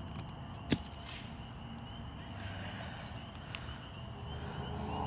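A single sharp snap a little under a second in, with a fainter click about three and a half seconds in, over a faint steady background hum.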